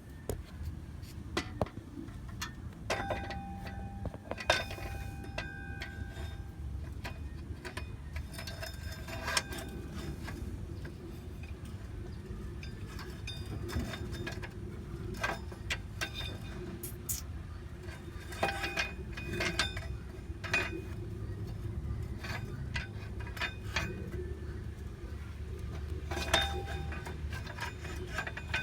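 Irregular metallic clinks and taps of hand tools and metal parts being handled, some ringing briefly, over a steady low hum.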